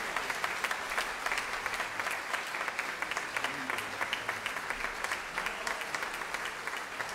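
Audience applauding: steady, dense clapping with no break.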